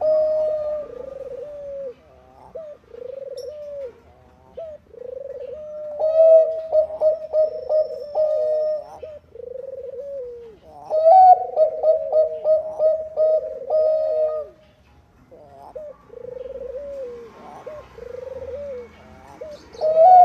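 Zebra doves cooing. Phrases of quick, bright coo notes come at the start, about six seconds in, about eleven seconds in and again at the end. Between them come softer, lower coos, about one a second.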